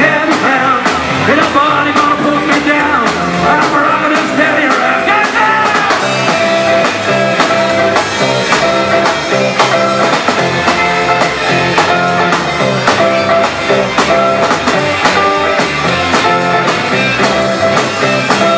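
Live rockabilly band playing an instrumental break between verses: an electric guitar lead over upright bass and drums keeping a steady, even beat. The lead line wavers and bends in the first few seconds.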